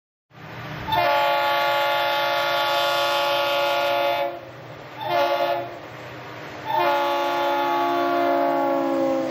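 CSX diesel freight locomotive's multi-note air horn sounding long, short, long over the rumble of the approaching train: the closing part of the grade-crossing signal. The last blast sags slightly in pitch as the train nears.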